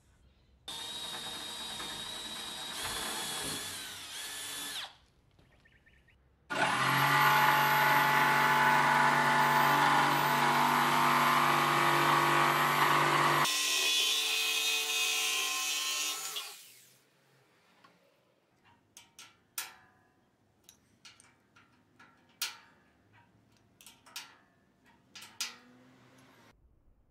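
Corded jigsaw cutting a wooden board: a short run, then a louder, longer cut of about ten seconds that winds down. It is followed by a scattering of light clicks and taps.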